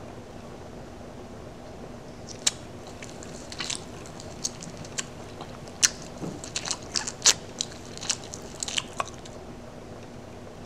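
A person chewing a crunchy mouthful of food loudly with the mouth open: a string of sharp, irregular crunches and smacks that starts about two seconds in and stops near the end.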